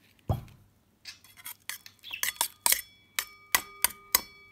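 A utensil clinking against a ringing bowl while stirring slime: a dull knock just after the start, then a run of sharp, irregular taps about two or three a second that grow louder.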